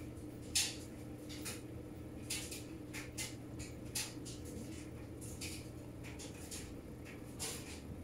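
Panasonic 16 kg top-load washing machine on its rinse stage: water swishing and splashing around the clothes in short, irregular spurts over a low steady hum. The sharpest splash comes about half a second in.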